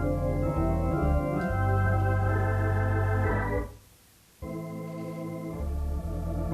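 Organ playing sustained chords with a strong bass. About halfway through it stops abruptly, leaving a brief gap of under a second, then comes back in more softly.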